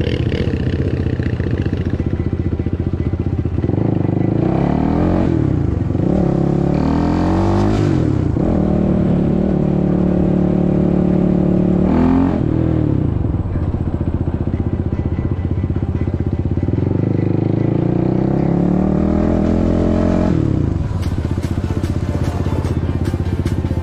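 Suzuki LTR 450 quad's single-cylinder four-stroke engine under way. It revs up in several rising pulls broken by gear shifts, holds a steady cruise, eases off, then pulls up again and drops back. Near the end a fast clatter joins in.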